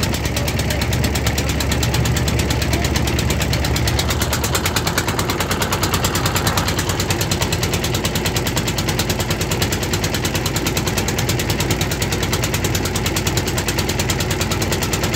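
Small wooden river boat's engine running steadily under way, a fast, even pulsing beat.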